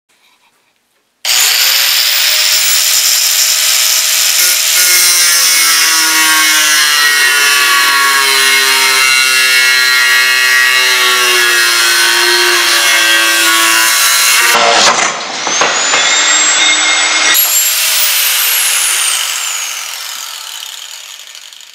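DeWalt angle grinder running loud under load, its motor whine sagging as it cuts, until about fifteen seconds in a sudden noisy burst as the blade breaks apart. The motor then runs on briefly and winds down with a falling whine that fades out.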